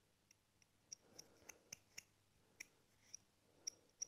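Near silence with faint, irregular light clicks as a steel shear blade is handled and its edge felt with the fingers for a burr.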